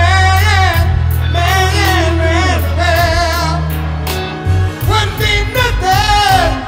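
Male soul vocalist singing with a wide vibrato over a live band, which holds long low bass notes underneath.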